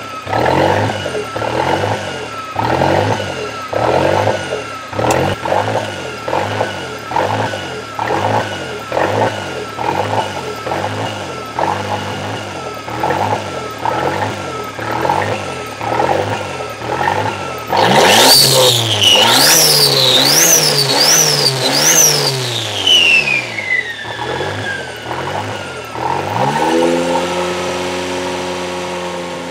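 Toyota 3E-TE turbocharged four-cylinder engine with a rough, hunting idle, surging up and down in a steady rhythm: the bounce idle of an engine with an unresolved idle fault. About two-thirds through it is revved several times, then the revs fall away and it settles to a steadier idle near the end.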